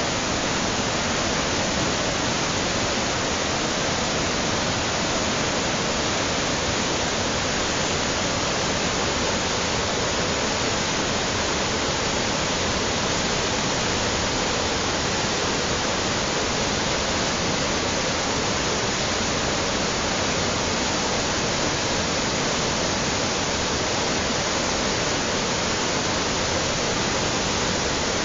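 River rapids in flood: a steady, unbroken rush of churning whitewater pouring over rocks, the river running high and swollen after a tropical storm.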